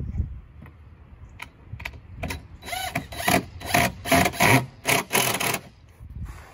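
Cordless drill driving a screw into a wooden roof-edge board in a run of short bursts, from about two seconds in to just past five seconds, after a few scattered clicks.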